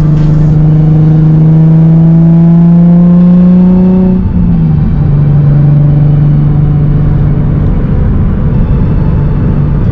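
Straight-piped Nissan 350Z HR's VQ35HR V6 through a Tomei exhaust, heard from inside the cabin. The engine pulls in gear, its drone rising in pitch for about four seconds, drops at an upshift, then runs steady in the next gear, with a brief dip near the end.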